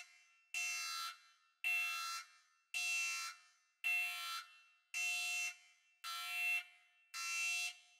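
Electronic alarm beeping in a steady repeating pattern, about one buzzing tone a second, each starting sharply and trailing off in an echo.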